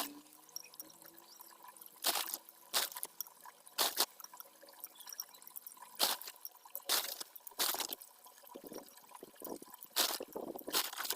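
White river pebbles clinking as they are set by hand into a small concrete fire-pit bowl: sharp clacks at irregular intervals, about eight in all, some in quick pairs.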